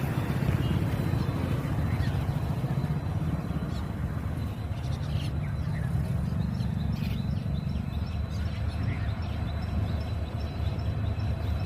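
WDG-4 diesel-electric locomotive's EMD 16-cylinder two-stroke engine humming steadily, a deep even drone.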